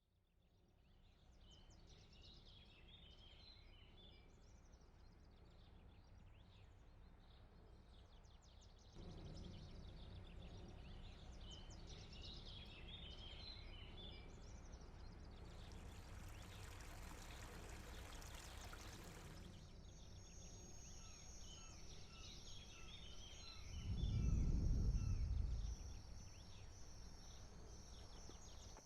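Birds chirping and calling over a faint outdoor hiss, in several spliced-together segments. Past the middle, a few seconds of louder rushing noise. A high, steady, pulsing trill then joins the birds, and near the end a brief low rumble is the loudest sound.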